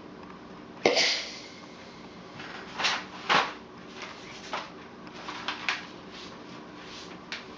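A steam iron set down with a sharp knock on an ironing board about a second in. Then come short, scattered rustles and crinkles of old rolled paper being handled and unrolled on the board.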